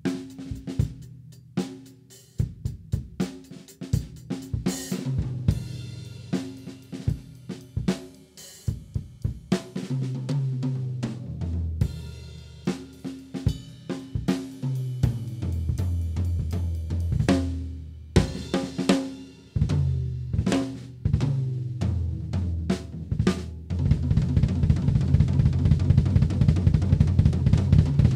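PDP MX maple-shell drum kit played: kick, snare and ringing tom fills with cymbal and hi-hat hits. In the last few seconds it turns into a fast, even run of strokes on the low drums.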